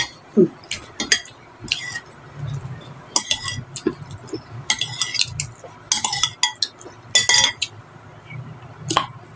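Close-up eating sounds: a metal spoon clinking against a ceramic bowl, and wet chewing and lip-smacking while fish is eaten with the fingers. There are a few sharp clinks at the start and one near the end.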